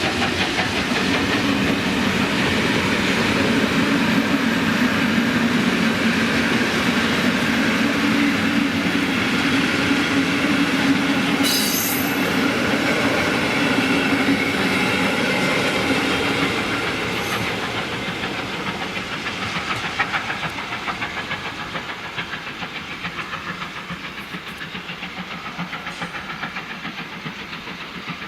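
Steam-hauled special train (locomotive 18 201 with its coaches) rolling past, wheels clattering over the rail joints, then fading away for the last ten seconds or so.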